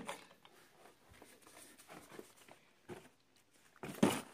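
Craft supplies being shifted by hand in a plastic storage drawer: light clicks and rustles of plastic containers, then a louder knock and scrape near the end as a case is pushed down into the drawer.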